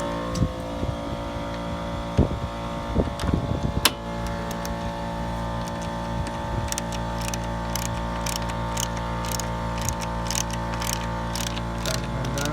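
Socket wrench ratcheting as it tightens the 10 mm radiator mounting bolts. A few knocks of the tool come about two to four seconds in, then a regular run of ratchet clicks, about two to three a second, from about halfway. Under it all is a steady mechanical hum.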